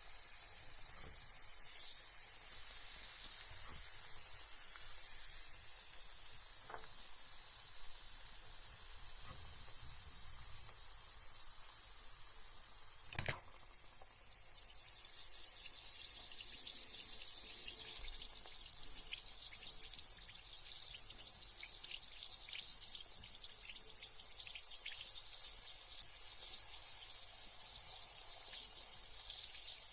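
Carbonated bath bomb fizzing in bath water: a steady high hiss of bubbles with small crackles, and a single sharp knock about thirteen seconds in.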